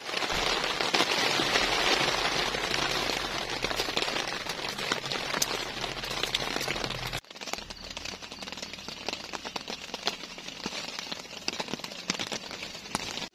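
Rain falling steadily, a dense hiss scattered with drop ticks. About seven seconds in it cuts abruptly to lighter rain with more separate drips.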